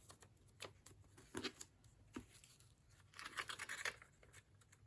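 Faint paper handling of an old thin book: a few soft taps and short rustles of the pages, with a brief flurry of rustling a little past halfway.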